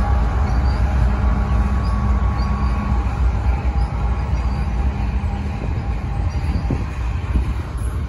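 Canadian Pacific diesel freight locomotives passing close by: a loud, steady engine drone with a steady hum that fades out about five and a half seconds in as the locomotives go by, leaving the rumble of double-stack container cars rolling on the rails.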